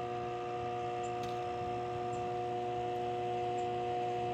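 2016 LG 8,000 BTU portable air conditioner running with its compressor on: a steady hum carrying several constant tones, with a few faint ticks. Its rear fan is stuck and not turning, which the owner puts down to something caught in it or a broken fan motor.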